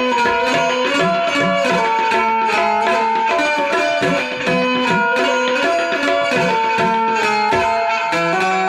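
Instrumental Indian folk music with tabla and banjo: a plucked banjo melody stepping quickly from note to note over a fast, steady tabla rhythm.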